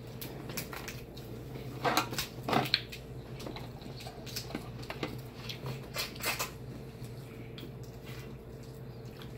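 Hands rummaging through shell-on seafood in a speckled enamel roasting pot: scattered clicks and clatter of shells knocking against each other and the pot, loudest twice about two seconds in. A steady low hum runs underneath.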